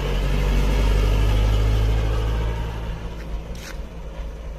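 A truck's engine running low and close as the truck drives past. It swells over the first two seconds and fades after about three, with a short hiss about three and a half seconds in.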